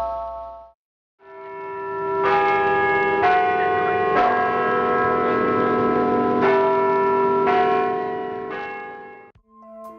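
Church bells ringing, with several bells struck in turn about once a second. The sound fades in after a brief gap about a second in and dies away just before the end.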